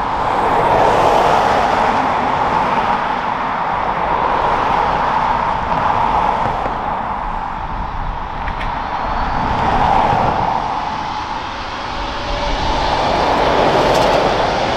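Twin turbofan engines of an Airbus A320neo-family airliner running at low taxi thrust as it rolls along the runway: a steady jet whine over a broad rumble, swelling and easing every few seconds.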